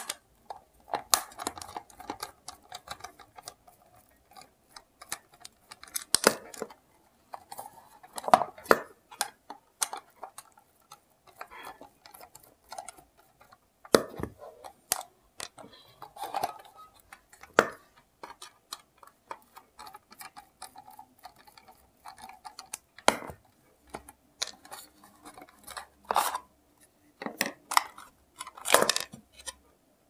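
Plastic housing of a hair dryer being unclipped and pried apart by hand: irregular clicks, snaps and knocks of plastic parts, a dozen or so sharper ones spread through with quieter handling between.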